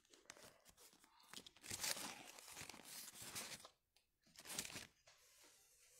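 Faint crinkling and tearing of wrapping material as items are wrapped for packing. It starts about a second and a half in, stops briefly near four seconds, and comes back once more.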